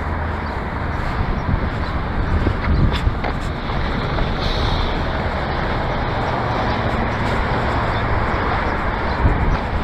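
Steady vehicle rumble and road noise, with a few faint knocks.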